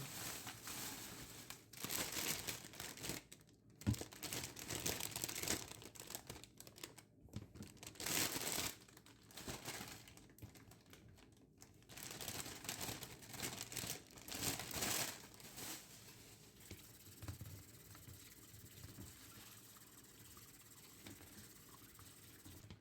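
Packaging crinkling and rustling in short irregular bursts as items are handled during a fridge restock. It dies down after about sixteen seconds to a faint steady hiss.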